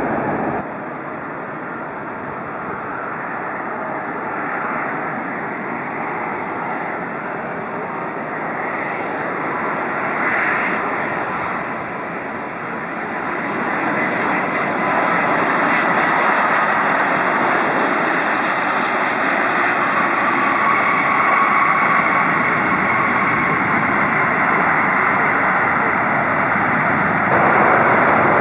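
Jet airliner engines running, a steady noise that grows louder about halfway through with a high whine over it.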